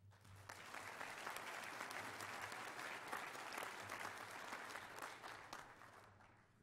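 Audience applauding: many people clapping, quickly building to full strength and then fading away near the end.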